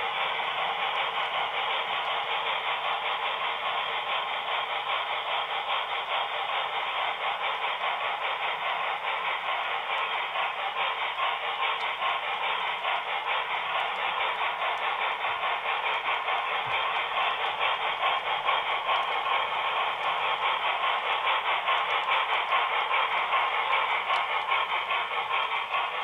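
HO-scale model train running on the layout track: a steady clatter of small metal wheels rolling on the rails with the locomotive's motor and gears, growing a little louder in the second half.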